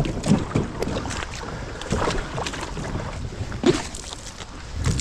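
Water splashing and irregular knocks of a kayak being handled in a shallow creek, with wind rumbling on the microphone.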